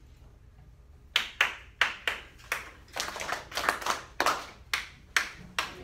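A run of hand claps starting about a second in, sharp separate claps coming irregularly two to three times a second.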